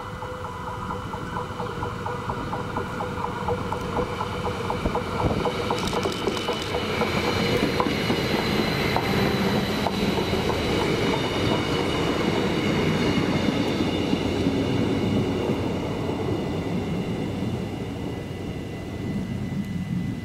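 Stadler GTW diesel multiple unit passing through at speed. Engine and wheel noise swell as it nears, are loudest for several seconds as it goes by, and fade as it draws away, with a brief run of sharp wheel clicks on the rails as it arrives.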